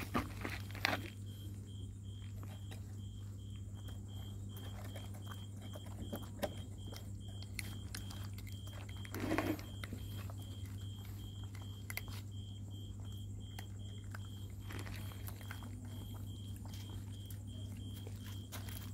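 A puppy being held and handled, with small clicks and rustles and one short cry about nine seconds in. Through it a high, steady-pitched chirp repeats about three times a second over a low hum.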